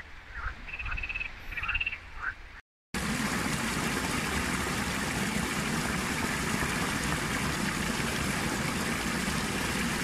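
Frogs croaking in short, repeated calls. Then, after a brief break, a steady, even rush of water pouring down a small waterfall into a narrow channel.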